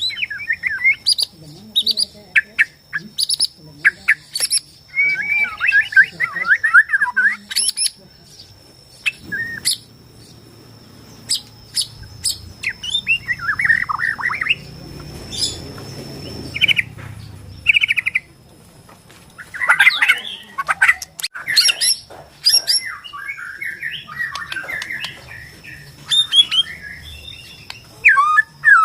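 White-rumped shama (Bornean murai batu) singing: fast, varied phrases of warbled whistles mixed with sharp clicks and harsh chattering notes, pausing briefly a third of the way in. A thin steady high tone runs behind the song.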